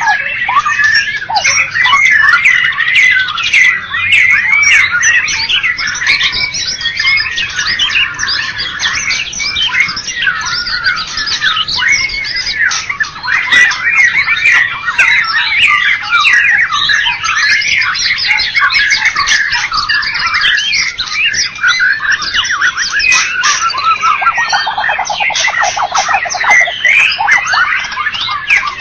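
White-rumped shama (murai batu) singing a continuous, rapid, loud song of varied whistles, chirps and glides, with a lower, fast buzzing trill for a few seconds near the end.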